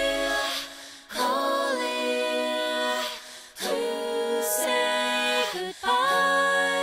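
Singing with the band dropped out: held, layered sung notes in three phrases, with short breaks about a second in and three and a half seconds in, and no drums or guitars underneath.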